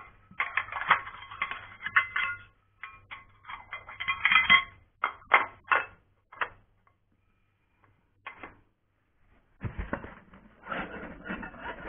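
Aluminium frame extrusions and parts of a 3D printer kit clattering and knocking as they are handled, in a quick run of sharp knocks. Near the end, packing foam rubbing and rustling in the box.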